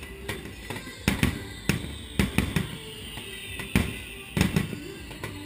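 Aerial fireworks shells bursting overhead: an irregular run of about ten sharp bangs, several coming in quick clusters.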